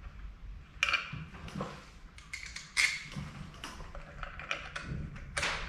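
Irregular light clicks and taps of metal parts being handled on an engine timing cover as the gasket is lined up and bolts are fitted by hand.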